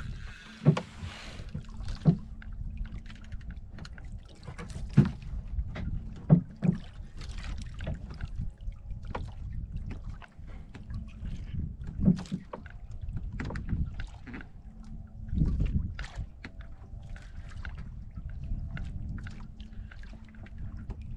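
Wind on the microphone and water slapping against a small outrigger boat's hull, with scattered sharp knocks and a faint steady low hum.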